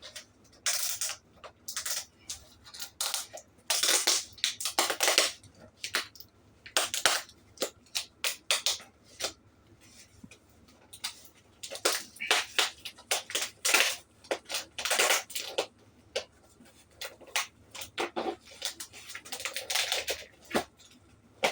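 Packaging being handled and opened by hand: a long run of irregular crinkling and rustling noises, some louder bursts among many small ones.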